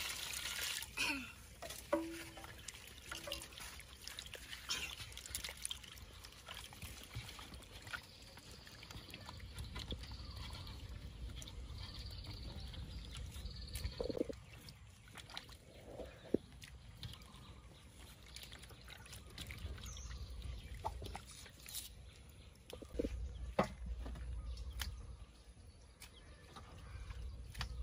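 Water poured into a metal basin at the start, then sloshing and trickling as vegetables are rinsed by hand, with scattered light clicks and knocks against the basin.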